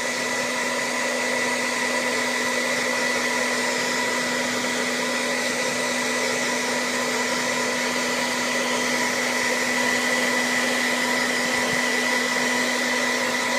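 Handheld hairdryer blowing hot air at a steady pitch, its motor hum running under the rush of air, heating a doll's vinyl head to soften it.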